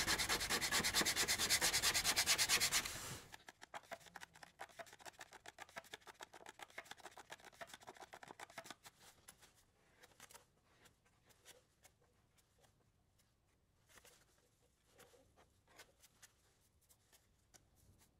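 A knife blade scraping excess half-cured polyester body filler off a car fender in quick, regular strokes. The filler is at the rubbery stage where it can be trimmed. The scraping is loud for the first three seconds, then softer strokes continue until about halfway, then only a few faint scrapes.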